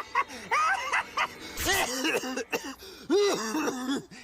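A cartoon character's voice laughing in repeated rising-and-falling syllables over background music, with a short noisy burst about one and a half seconds in.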